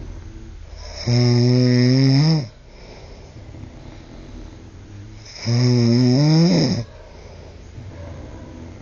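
A sleeping man snoring loudly: two long rattling snores on the in-breath, each about a second and a half, about four seconds apart, each rising in pitch just before it breaks off, with quieter breathing between them.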